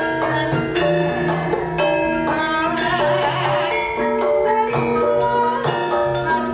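Javanese gamelan ensemble playing dance accompaniment: struck bronze metallophones ringing in a continuous flow of notes.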